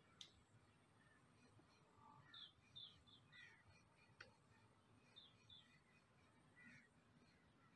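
Near silence, with faint, short high-pitched animal calls every second or so and one small click about four seconds in.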